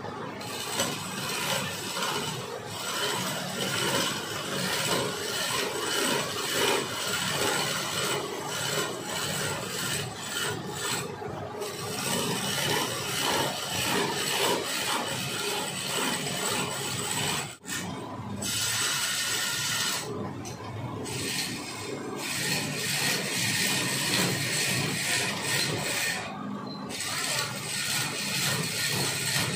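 A hand-held turning chisel cutting a long wooden spindle as it spins on a wood lathe: a steady, rasping scrape of the cut. It breaks off for a moment a little past halfway.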